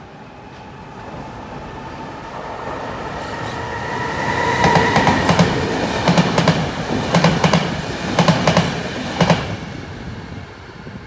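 Electric passenger train passing close by. A rising rumble and steady whine build as it approaches, then about halfway in comes the rhythmic clack of the wheels over the rail joints, in pairs about a second apart, before it fades.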